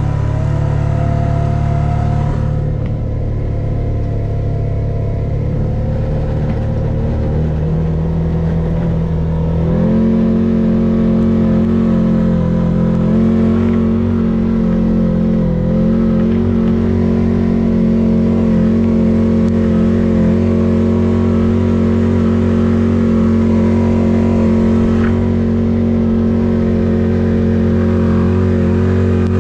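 Engine of a snow-clearing machine running steadily under load while moving snow, its pitch stepping up twice about a third of the way in, then holding.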